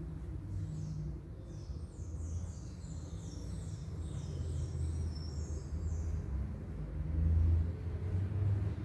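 Steady low rumble, with a bird twittering a quick run of short, high, falling notes from about half a second in until about six seconds in.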